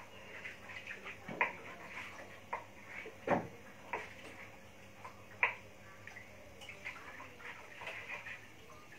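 Irregular light knocks and clicks of a small knife and utensils working raw beef into small pieces, with three louder knocks about a second and a half, three seconds and five and a half seconds in.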